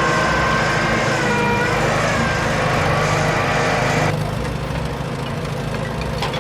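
Electric motors and gearboxes of RC construction vehicles running, a steady mechanical whine over a rumble, the pitch dipping briefly; the whine cuts off abruptly about four seconds in, leaving a lower, quieter rumble.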